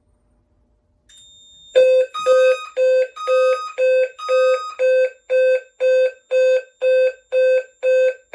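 Fire alarm intelligent sounder base on a Notifier addressable system, set off by a magnet test of its heat detector, starting to sound a pulsed alarm tone in march time, about two beats a second. It starts about two seconds in, after a faint high tone, with a second, higher tone on the first few beats.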